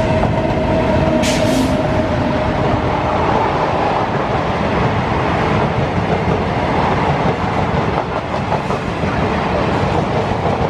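Passenger train running at speed across an iron railway bridge, with a loud, steady noise of wheels on the track throughout.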